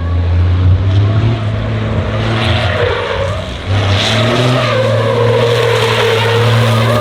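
Tyres squealing in a long skid over a running engine during a drift show run. The squeal wavers, dipping and rising, and grows louder a little over halfway through.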